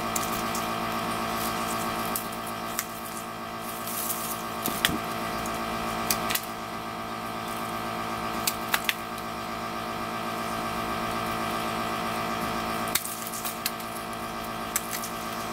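Small hand nippers snipping the flower clusters off a pieris japonica cutting: sharp clicks at irregular intervals, a second or two apart, over a steady background hum.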